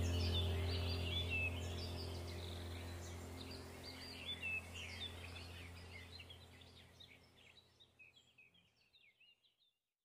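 Birds chirping and twittering over a low steady hum, a background nature-sound track that fades out to silence about seven seconds in.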